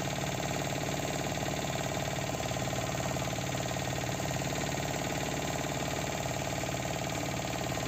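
A boat's onboard engine running steadily, an even mechanical drone with a fast, regular beat.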